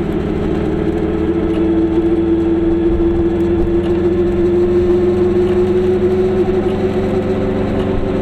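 Goggomobil's small air-cooled two-stroke twin engine running steadily while the car moves slowly, its drone dipping slightly in pitch and then creeping back up.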